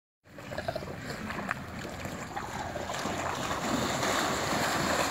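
Dogs wading and paddling through shallow pool water, water sloshing and splashing, growing louder about three seconds in.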